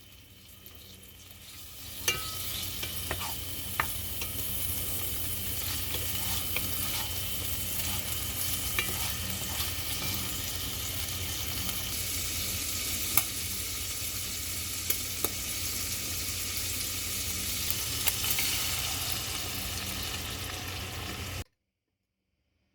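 Food sizzling as it fries in a pan, a steady hiss with a few sharp clicks, cutting off suddenly near the end.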